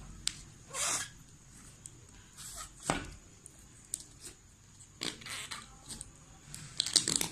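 Clear slime being squeezed and handled: scattered short squelches and sharp clicks, the loudest cluster near the end.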